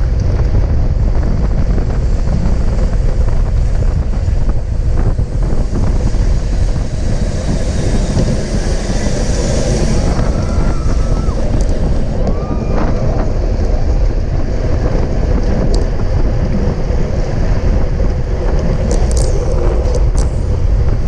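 Wind rushing over a GoPro's microphone on a bicycle at race speed: a steady, loud, low rumble.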